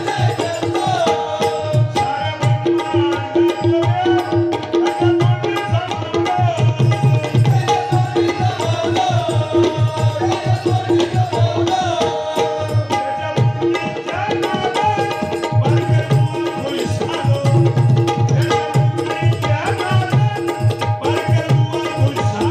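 Harmonium melody over a steady rhythm of hand-drum strokes, an instrumental passage of a Malvani gavlan devotional song.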